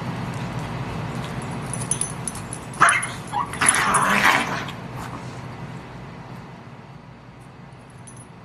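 Dogs play-fighting, with a short flurry of yips and whimpering barks about three seconds in that lasts around a second and a half.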